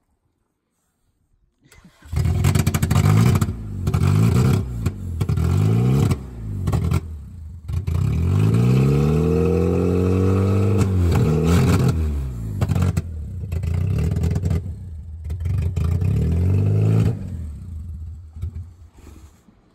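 Beat-up demolition-derby car's engine revved hard again and again, the pitch climbing and falling, with one long high rev in the middle, as the car spins its wheels in deep mud. It starts about two seconds in and dies away near the end.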